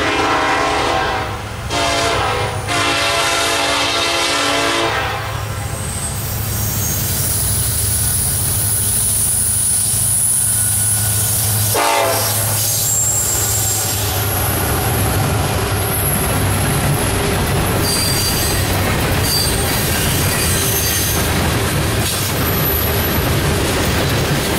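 Norfolk Southern freight train passing: the diesel locomotive's horn sounds a long blast, a short one and another long one in the first five seconds, and gives a brief toot as the locomotives go by about twelve seconds in. After that the freight cars roll past with a steady rumble, wheel clatter and thin high wheel squeal.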